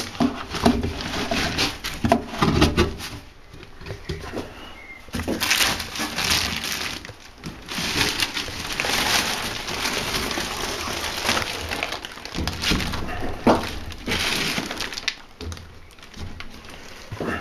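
Plastic motor-oil bottles being handled and pushed in between a tire's beads: irregular knocks, clatters and scraping of plastic against rubber, mixed with rustling.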